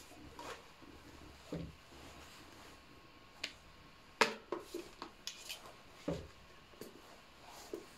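Scattered light knocks and clicks from a stainless-steel electric kettle being handled and turned over. The sharpest click comes about four seconds in, followed by a quick run of smaller taps.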